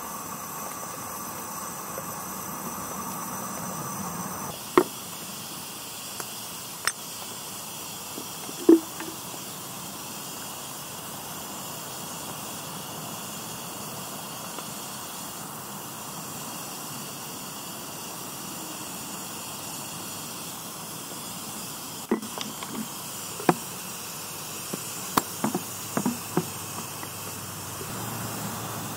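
Ransomes, Sims & Jefferies steam traction engine standing in steam: a steady hiss, with sharp metallic clicks and clanks as its controls are worked, a few scattered at first, then a quick run of them near the end.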